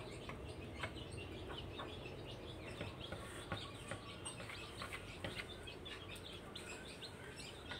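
Chicks peeping in short, frequent chirps as they feed with a hen, with occasional sharp pecking taps on wooden floorboards.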